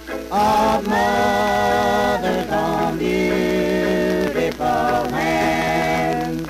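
Old Victor 78 rpm shellac record playing a family group singing a mountain gospel song in harmony. The voices hold long notes in phrases of a second or two, over the disc's steady surface noise.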